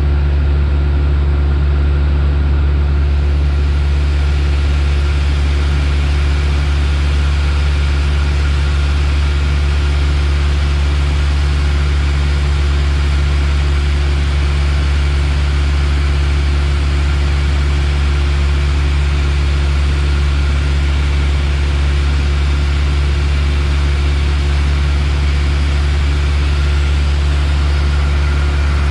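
Piper Warrior's four-cylinder Lycoming engine and propeller droning steadily, heard inside the cockpit as a strong low hum under an even hiss of air noise.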